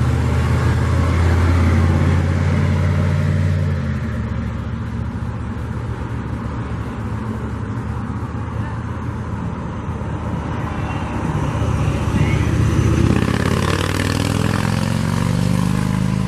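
A motor vehicle engine running, a low steady drone that eases after about four seconds and shifts in pitch later on.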